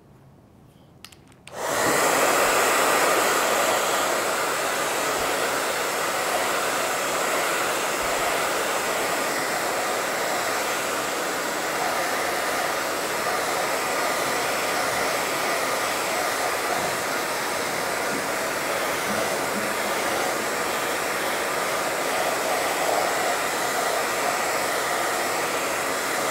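Handheld hair dryer switched on about a second and a half in, then blowing steadily with a faint whine, drying fresh paint.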